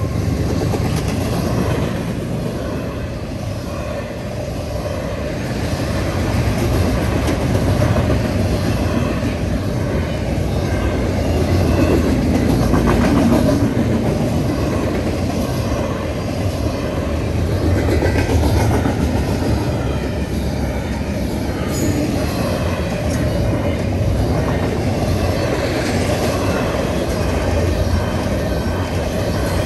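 CSX doublestack intermodal freight train rolling through a grade crossing at speed: a steady rumble with the clatter of steel wheels on the rails as the well cars go by.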